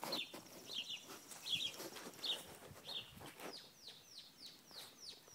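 A bird singing faintly: a few short chirps, then a quick run of down-slurred whistled notes, two or three a second.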